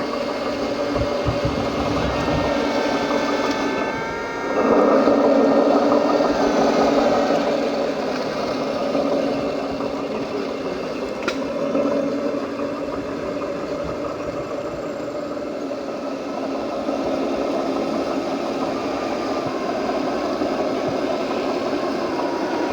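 Radio-controlled scale construction machines running: a steady mechanical whir and hum whose pitch shifts and glides in the first few seconds, growing louder for a few seconds, with a single sharp click about eleven seconds in.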